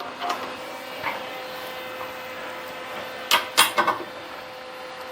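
Electric motor of a slow-speed Delta drill press converted for tapping, starting up and running with a steady hum and a steady whine, with a few sharp clacks a little past halfway.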